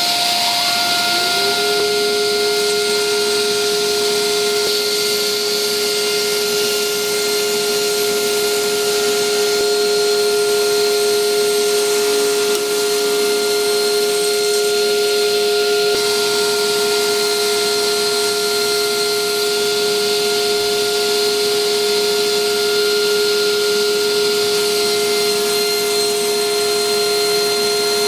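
Table saw motor running at full speed with a steady high whine, having just spun up; a second, lower motor tone rises and settles about a second in.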